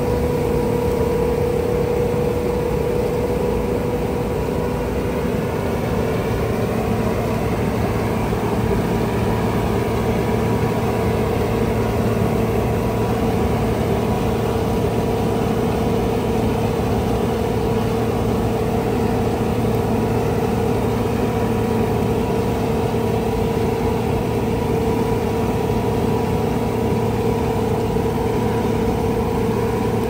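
Diesel harvest machinery running steadily under constant load, a heavy engine with a steady hum.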